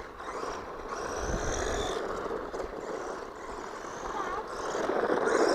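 A 1/12-scale four-wheel-drive hobby-grade RC car driving about: electric motor whine over tyre and gear noise. It gets louder about a second and a half in and again near the end as the car comes closer.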